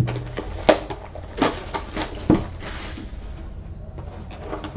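A sealed Panini Prizm trading-card hobby box being handled and opened: several sharp taps and clicks of the cardboard box, with a brief crinkle of plastic wrap a little past the middle.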